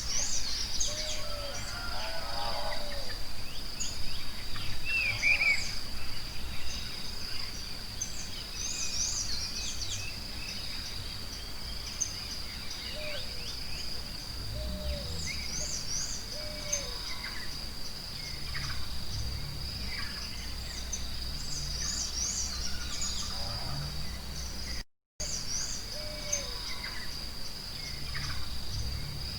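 Forest birds chirping and calling over a steady, high, insect-like drone, with a few lower whistled calls. The sound cuts out for a split second near the end.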